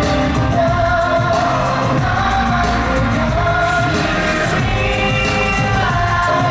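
A K-pop song with male group vocals singing over its backing track.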